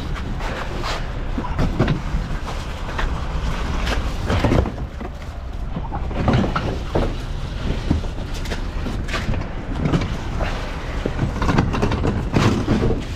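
Front-load garbage truck's diesel engine running in a steady low rumble, with irregular knocks, rattles and scraping over it.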